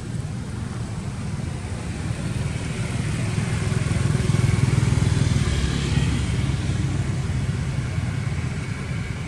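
A motor vehicle's engine hums, swelling louder about four to six seconds in and then easing off again.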